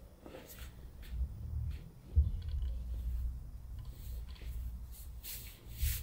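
Handling noise from a person standing in socks on a patient's lower back on a padded treatment table: a low rumble with faint clicks and creaks, one dull thump about two seconds in, and a short rustle near the end.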